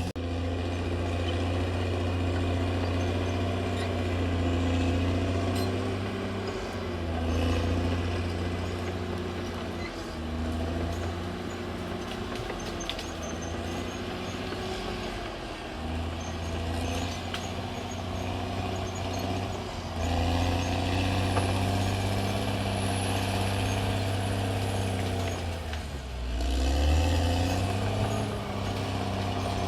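Caterpillar D6R XL bulldozer's diesel engine running under load, its pitch sagging and recovering several times, most deeply about 26 seconds in.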